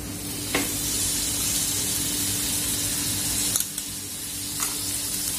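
Steady sizzling hiss as water-soaked dried prawns go into hot oil and masala in a kadhai, the wet prawns steaming in the pan. A few light clicks about half a second, three and a half and four and a half seconds in.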